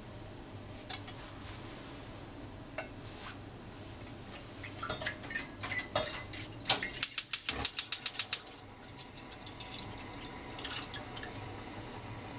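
Orange juice poured from a plastic measuring jug into a stainless steel saucepan, splashing and pattering in the pan. About seven seconds in comes a quick, evenly spaced run of about a dozen sharp clicks, typical of a gas hob's spark igniter lighting the burner.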